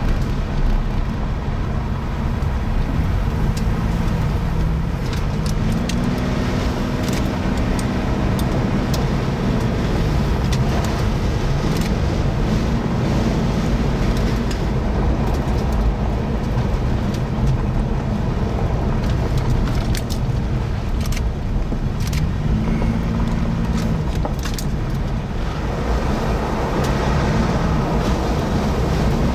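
Car engine and road noise from a vehicle driving, the engine's pitch rising and falling a few times, with scattered sharp clicks.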